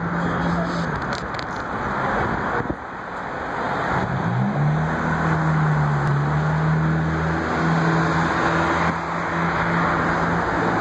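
Road traffic: cars passing on a street, with a steady engine hum whose pitch rises briefly about four seconds in.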